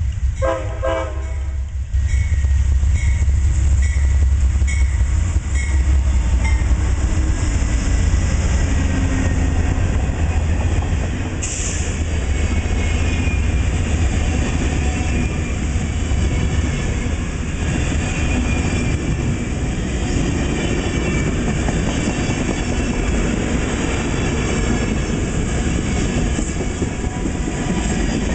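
Amtrak passenger train with two P42DC diesel locomotives. Its horn sounds a short chord for about a second and a half at the start. The locomotives then pass close by with a heavy low rumble. Bi-level passenger cars follow, clattering steadily over the rails.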